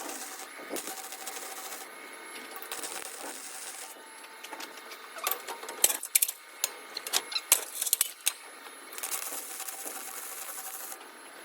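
Sharp metallic clinks and knocks from a steel part being flexed and worked by hand, bunched together in the middle, over a faint steady hiss.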